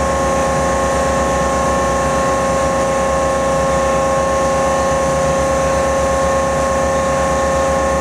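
Steady, loud machine drone from a taconite ore silo loading rail cars, with several held tones over a fast, low throb. No single part of the machinery stands out.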